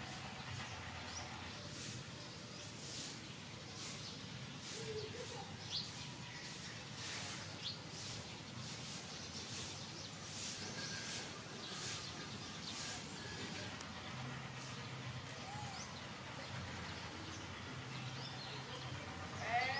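Outdoor ambience: a steady high insect drone with a few short bird chirps scattered through it, the loudest cluster of chirps near the end.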